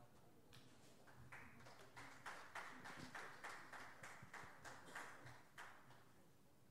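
Faint, even hand clapping, about four claps a second, starting about half a second in and stopping near the end.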